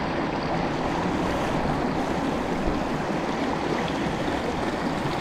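Rushing water of a turbulent, rain-swollen river pouring over a small cascade into a pool: a steady, even rush with no breaks.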